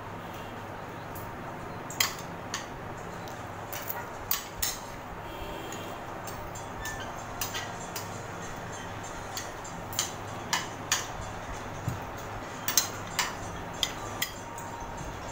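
Metal forks and spoons scraping and clinking on ceramic dinner plates while eating, in scattered irregular clinks over a steady background hum.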